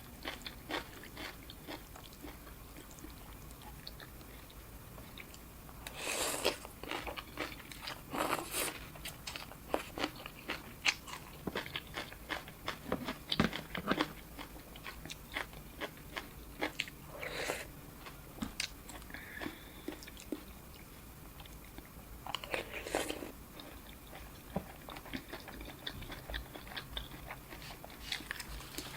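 A person eating boat noodle soup close to the microphone: steady chewing and small wet mouth clicks, with four longer, louder bursts spread through, typical of slurping noodles.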